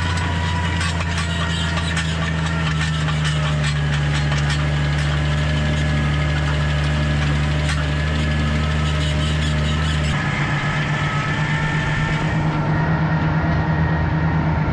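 Farm tractor engine running steadily under load while raking hay, a low, even drone with light ticking over it. About ten seconds in, the low part of the drone changes abruptly.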